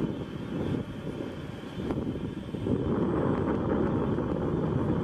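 Turbofan engines of a taxiing Embraer E-Jet airliner: a steady low rumble with a faint high whine in the first half, growing louder about three seconds in.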